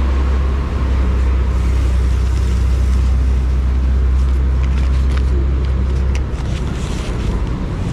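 A motor vehicle engine running with a steady low rumble that drops away about six seconds in.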